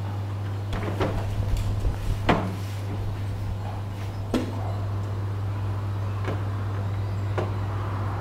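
Plastic back cover of a flat-screen TV being handled and pressed into place: a handful of separate knocks and clicks, the loudest about two seconds in, over a steady low hum.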